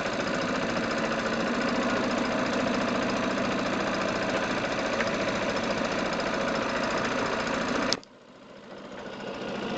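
A fishing boat's engine running steadily while the boat is under way. About eight seconds in the sound drops sharply, then the engine grows louder again.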